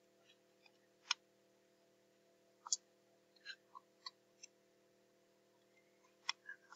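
Computer mouse clicking: a handful of sharp, isolated clicks at uneven intervals, over a faint steady hum.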